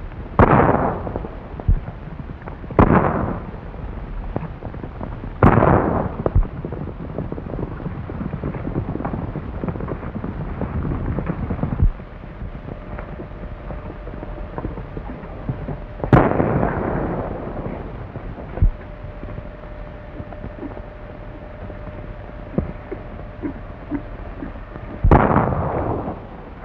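Five gunshots fired at uneven intervals during a gunfight, each followed by a long echoing tail, over a steady hiss.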